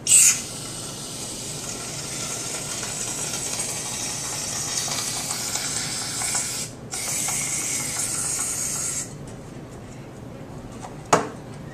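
Aerosol can of Cool Whip whipped topping spraying into a bowl: a steady hiss starting with a sharp burst and lasting about six and a half seconds, a brief break, then a second spray of about two seconds.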